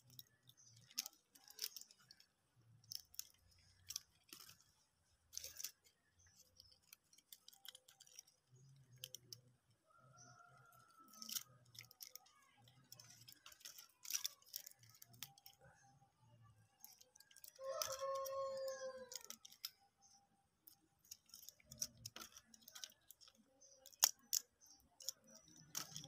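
Quiet, scattered crinkling and clicking of medicine strips and packets being handled. A brief pitched sound comes in the background about 18 seconds in.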